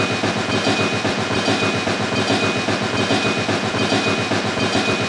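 Toy steam locomotive running on its track, with a steady, fast rhythmic train clatter.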